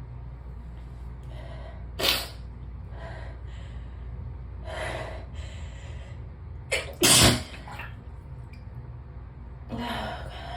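A person sneezing twice: a sharp sneeze about two seconds in and a louder one about seven seconds in, with quieter breaths between.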